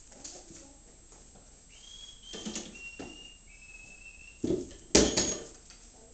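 Paint roller on an extension pole: a thin, high squeak in a few short steady tones, each a little lower, then two loud knocks and a scrape as the roller is dipped and worked in the paint bucket about four and a half seconds in.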